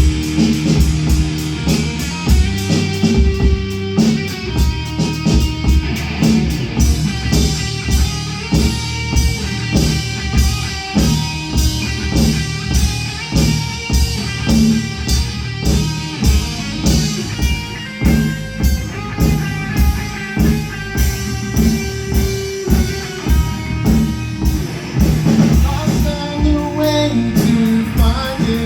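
Live rock band playing an instrumental passage: electric guitar over bass and a steady drum-kit beat.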